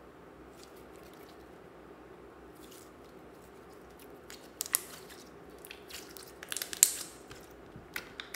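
Glitter slime being stretched and squeezed by hand. It is faint for the first few seconds, then gives a run of sharp wet clicks and pops from about halfway through, loudest just before the end.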